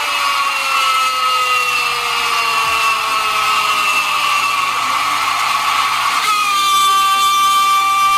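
A broadcast commentator's long, held goal shout ("goool") over stadium crowd noise, its pitch slowly falling. It breaks about six seconds in for a breath and starts again on a new, higher held note.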